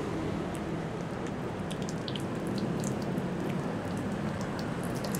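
Steady low hum in a car's cabin, with faint scattered crinkles and ticks from paper food wrapping handled while eating by hand.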